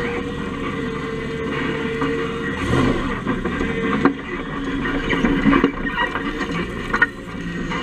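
Dodge Ramcharger driving over rough, grassy ground, heard from under the chassis: a steady engine and drivetrain hum with irregular knocks and rattles, busiest past the middle, as the underside brushes through grass.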